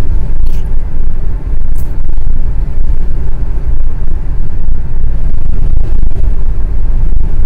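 Steady low rumble inside a moving car's cabin: road and engine noise.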